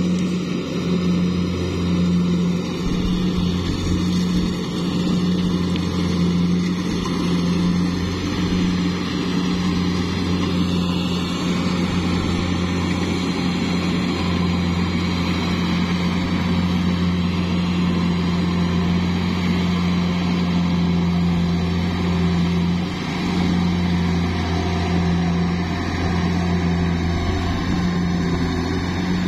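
Kubota DC70 Plus combine harvester's diesel engine running steadily while harvesting rice, a constant low hum.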